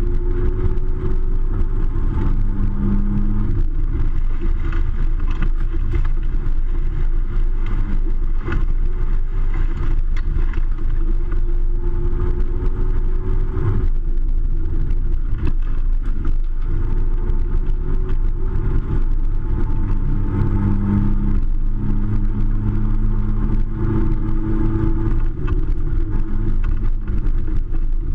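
Off-road vehicle engine running hard and continuously, its pitch slowly rising and falling as it revs.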